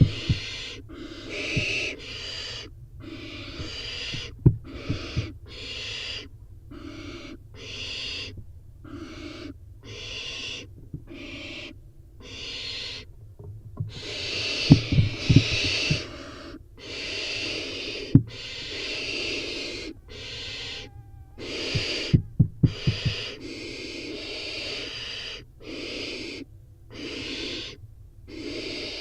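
Barn owl nestlings giving rasping, hissing begging calls (the 'snoring' call), one about every second, overlapping from several chicks. A few sharp thumps and scuffles stand out, the loudest in a cluster about halfway through and another near the end.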